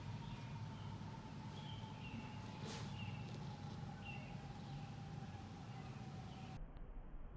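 A small bird chirping a few short times over a steady low background hum.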